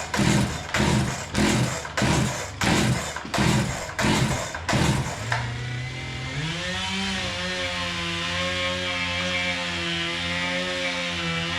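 An engine: a quick run of rhythmic noisy strokes, about two a second, then from about five seconds in a steady running drone whose pitch steps up once and wavers slightly.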